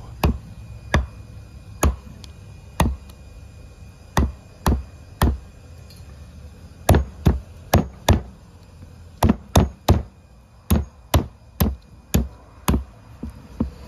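Meat cleaver chopping chicken on the bone on a round wooden chopping block. About twenty sharp chops come unevenly spaced, some in quick runs of three or four.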